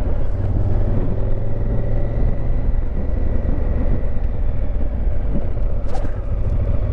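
Honda Africa Twin CRF1000L's parallel-twin engine running steadily while riding, with wind and tyre noise on a bike-mounted camera. A brief click comes near the end.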